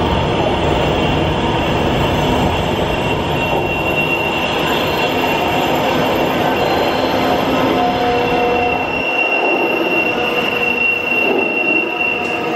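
Transperth B-series electric train approaching through the tunnel into an underground platform: a steady rumble with a high steady squeal that grows stronger over the last few seconds. The deep part of the rumble drops away about nine seconds in as the train nears the platform.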